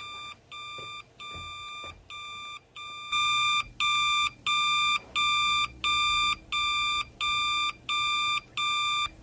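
Telephone ringing with an electronic beeping tone, one beep about every 0.7 s, getting louder about three seconds in.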